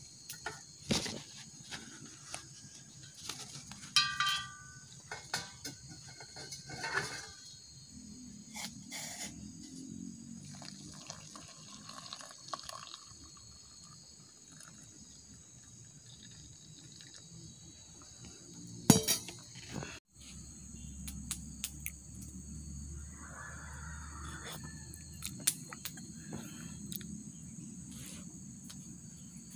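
Camp-cooking handling sounds: scattered clicks and knocks as a portable butane stove's knob is turned and a steel mug is handled, and hot water poured from the mug into a plastic cup. A sharp knock comes about two-thirds in, then a steady outdoor background with insects.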